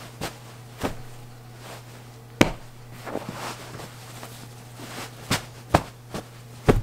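Pillows being tossed and dropped onto a bed, making about seven short, sharp slaps and thuds at uneven intervals, over a steady low hum.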